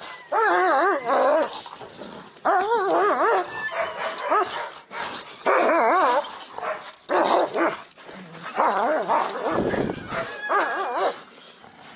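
German Shepherd screaming and yelping in pain while it is bitten in a dog fight: about six loud cries of roughly a second each, their pitch wobbling up and down, with short gaps between. A low thump late on.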